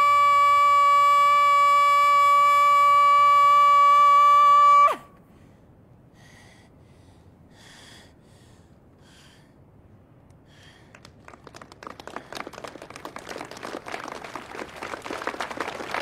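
A young woman's singing voice holding one long, high note at full power for about five seconds, then cutting off suddenly. After a quieter pause, a crowd starts clapping, and the applause grows louder toward the end.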